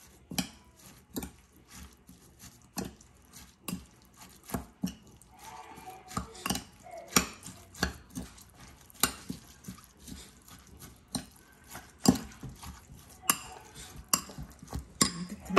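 Metal spoon clinking and scraping against a ceramic bowl while mixing chopped herbs and shallots, in irregular clinks about one or two a second.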